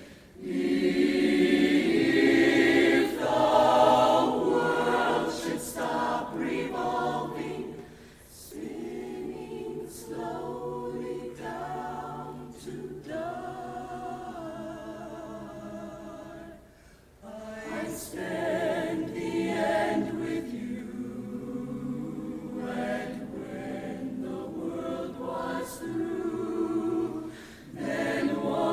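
High school show choir singing sustained chords, with no instruments standing out, in phrases that break off briefly about 8 and 17 seconds in.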